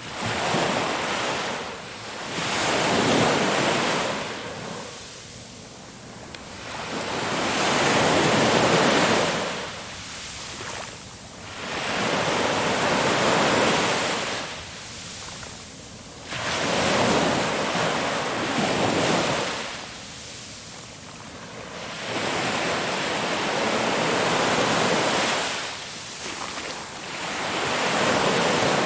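Ocean waves breaking and washing on a shore, a surge of surf every three to four seconds that rises and fades away, with some wind.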